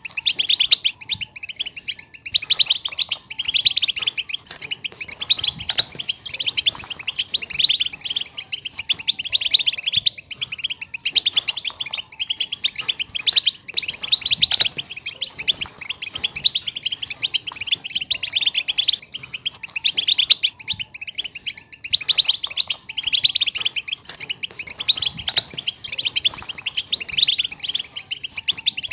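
European goldfinch chattering and twittering in fast, unbroken runs of high chirps. It is a 'batbata' call track, the kind played to a silent caged goldfinch to stir it into song.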